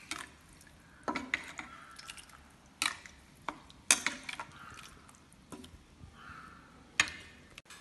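A spoon stirring a watery mushroom curry in a stainless steel pot: irregular clicks and knocks as the spoon strikes the side of the pot, with faint wet liquid sounds between.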